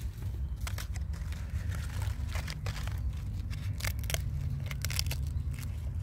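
Dry, papery Hildegardia populifolia fruit being torn open by hand to reach the seeds: a run of short crackles and tearing clicks starting about half a second in, over a low steady rumble.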